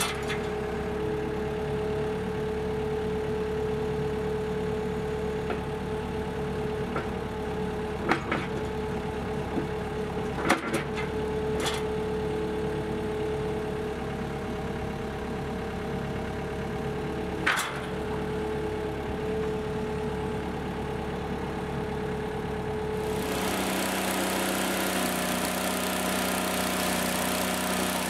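A Takeuchi TL150 compact track loader's diesel engine runs steadily while its forks handle sawn pine timbers, with a few sharp knocks of wood and metal. Near the end the sound changes to a bandsaw sawmill running, its blade cutting through pine with a steady hiss over the mill's engine.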